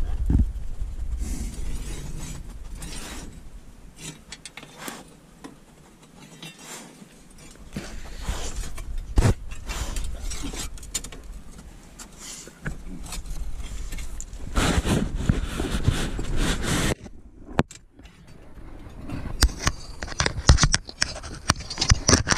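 Irregular scraping with sharp clicks and knocks among rocks, coming in uneven spells rather than a steady rhythm.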